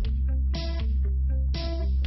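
Background music with a steady beat: sustained bass and chord tones under a rhythmic pulse.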